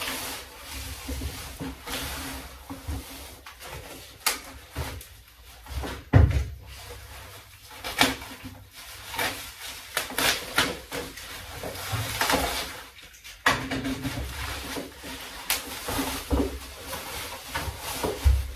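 Plastic wrapping and a quilted padded wing bag rustling and crinkling as they are handled and pulled open, with a few dull knocks against a wooden workbench.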